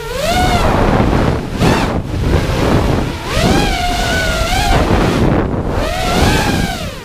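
Brushless motors and propellers of a freestyle FPV quadcopter whining, the pitch rising and falling over and over with the throttle, with a few brief throttle cuts along the way. Rushing wind noise from prop wash and airspeed on the onboard camera's microphone.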